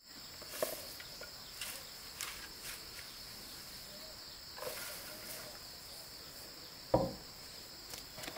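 Insects calling with a steady, high continuous drone, with scattered light clicks and a single sharp thump about seven seconds in.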